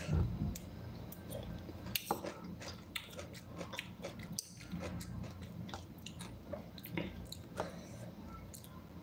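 Close-up chewing of raw cucumber and tomato, with scattered short clicks and taps of a metal fork picking at the pieces in the bowl.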